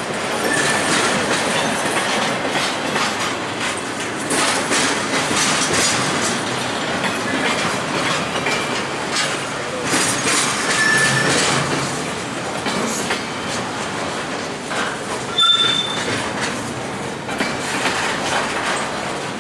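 Intermodal freight train's container and trailer cars rolling past, with a steady rumble of steel wheels on rail and an irregular clickety-clack over rail joints. A few short, high wheel squeals come through: one about half a second in, one near the middle and a louder one past three quarters of the way.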